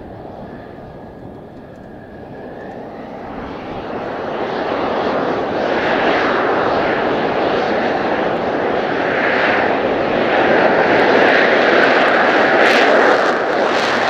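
Mitsubishi F-2 fighter's F110 turbofan run up to takeoff thrust. A thin jet whine with a fainter rush for the first couple of seconds, then the jet roar builds over the next few seconds into a loud, steady roar.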